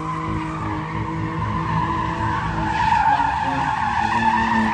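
BMW 3 Series sedan drifting: its tyres squeal continuously while the engine's revs rise and fall through the slide.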